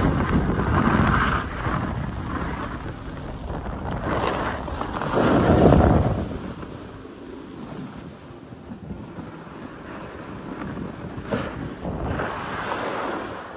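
Wind rushing over the microphone and snow hissing and scraping under a rider gliding down a groomed slope. The rush swells to its loudest about five to six seconds in, as if carving a turn, then settles to a lighter hiss.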